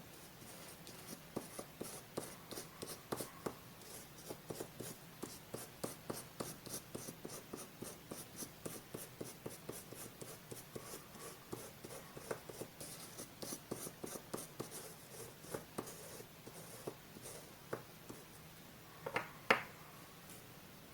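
Close-miked scratching and rubbing strokes on paper, several a second in a fast run, with a louder cluster of crackles shortly before the end.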